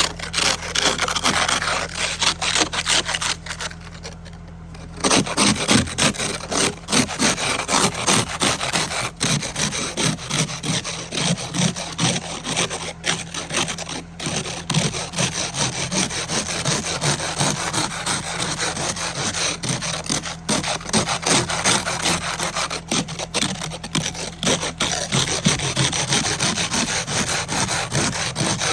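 Ice scraper scraping ice off a car windshield in rapid, repeated strokes, with a short pause about four seconds in.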